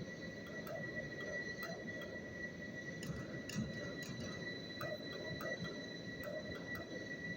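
Machine tool at work on a metal gate valve part: a steady high whine over a low rumble, with irregular light ticks.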